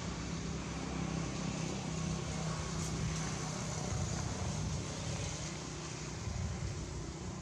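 Steady low hum of a running motor under a constant outdoor hiss.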